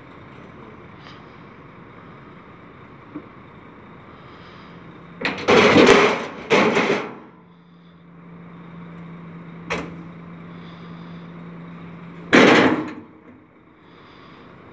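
Rear loading ramp of an Ikiler livestock trailer being lowered: two loud metal clatters about five to seven seconds in, a steady low hum, a single sharp knock near ten seconds, and a last loud clatter as the ramp comes down near the end.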